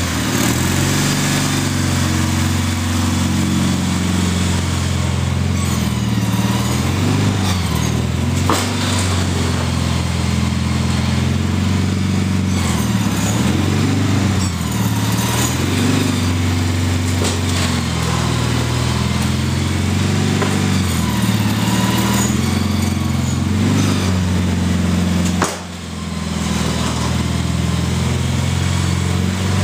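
Gravely garden tractor's engine running under load while it pushes snow with its front plow blade, the engine note rising and falling as it works. About 25 seconds in the sound drops away for a moment, then comes back.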